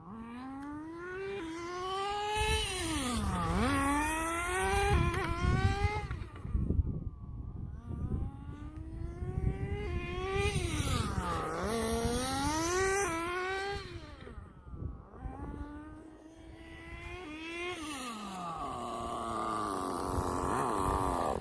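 Small nitro glow engine of an RC car (Tamiya FS18LT with a TM2 tuned manifold and muffler) buzzing at high revs, its pitch dropping and climbing as the throttle is lifted and reapplied. The sound swells and fades as the car laps past, loudest twice as it comes close.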